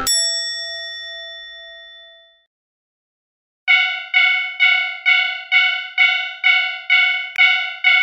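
A single bright chime at the start rings and fades out over about two seconds. After a short silence, a Japanese railway crossing warning bell starts, dinging steadily a little over twice a second: the signal that a train is coming.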